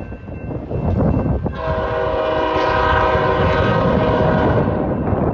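Diesel locomotive's air horn sounding one long chord of several notes, held for about three seconds from a little over a second in, over a steady low rumble.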